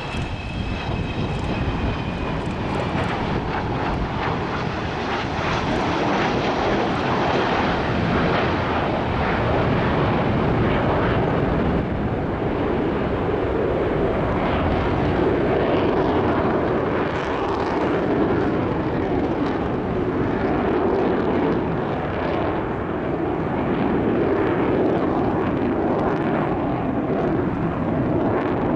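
Avro Vulcan bomber's four Rolls-Royce Bristol Olympus turbojets: loud, steady jet roar of the aircraft flying past. A high whine falls slightly in pitch over the first few seconds.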